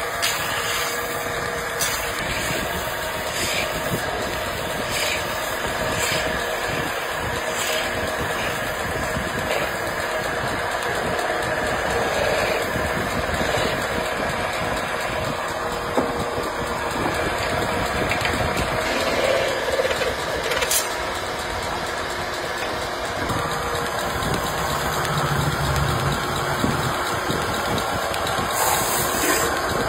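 Metal-spinning lathe running while a hand-held steel tool presses a spinning aluminium blank over its form to shape a cooking pot: a steady machine noise of motor and metal rubbing, with a few sharp clicks.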